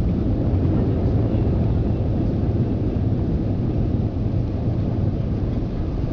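Airbus A320-214 cabin noise during the landing rollout, heard from the rearmost row: a steady, loud, low rumble of the CFM56 engines and the landing gear rolling on the runway.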